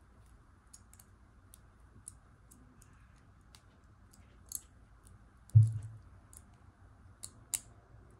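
Faint, scattered clicks and ticks of a rhinestone brooch's metal setting and stuck pin back being worked between the fingers, with one dull bump about five and a half seconds in.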